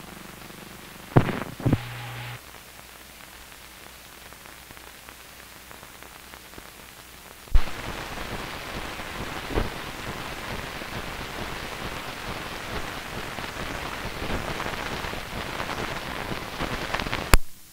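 Surface noise on an old film soundtrack: a low hum and hiss with two sharp pops about a second in. About halfway through it gives way to a steady crackle with scattered louder pops, which cuts off suddenly near the end.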